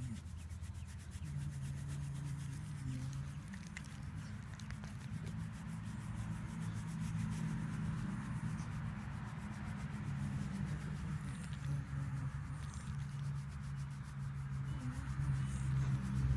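Dog being scratched: fingers rubbing through its fur, with the dog making low, drawn-out grumbling noises held for a second or two at a time.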